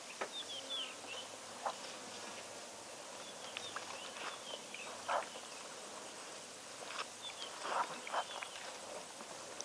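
An African bush elephant drinking at a waterhole: a few short splashes and slurps of water from its trunk, loudest about five seconds in and again near the end. Brief high bird chirps come in between, over a steady outdoor background.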